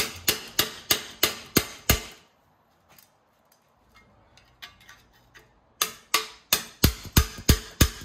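Hammer striking the end of a screwdriver driven into a cut slit in a steel piece seized by corrosion onto an aluminium rear trailing arm. The sharp metal-on-metal blows come just over three a second, each ringing briefly. There are two runs of about seven blows, separated by a pause of a few seconds.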